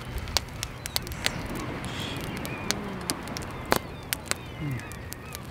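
Wood campfire crackling, with irregular sharp pops and snaps over a steady background hiss.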